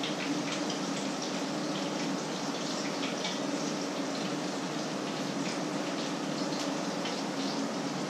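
Food frying in oil in a pan, a steady sizzle with frequent small crackles and pops, over a steady low hum.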